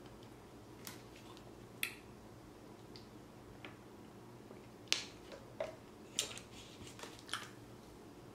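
A handful of faint, scattered clicks and crinkles from a plastic water bottle being handled and drunk from, the sharpest about five seconds in.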